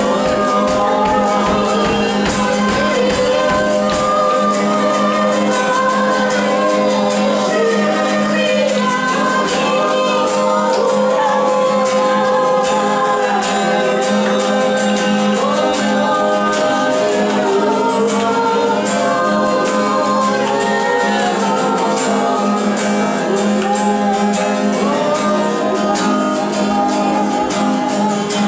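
Live worship music: a woman singing a slow, flowing melody over sustained acoustic guitar chords. A rhythmic pulse under the music stops about four seconds in, leaving the voice over held chords.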